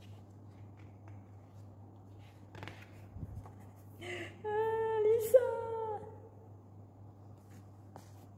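Glossy photo-book pages being turned, with a rustle and a soft thump about three seconds in. Then a person's voice hums a drawn-out note for about a second and a half, dipping in pitch at the end.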